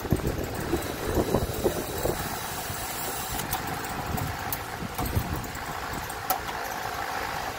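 Steady low rumbling background noise with a few light clicks.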